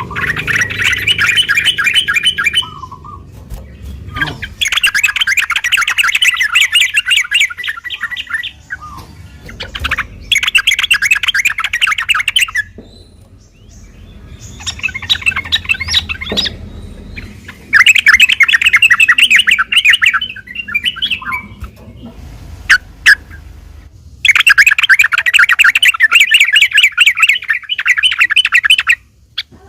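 Yellow-vented bulbul (trucukan) singing in loud bursts of fast, chattering notes, each a few seconds long, with short pauses between, about six bursts in all.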